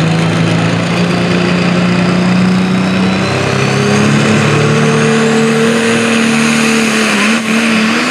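Turbocharged diesel engine of a Case IH pulling tractor revving at the start line, its pitch climbing slowly as it is brought up, with a high whine rising above it midway.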